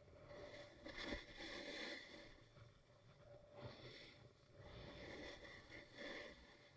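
Faint swishes of edges scraping across groomed snow, swelling and fading every second or two with each turn.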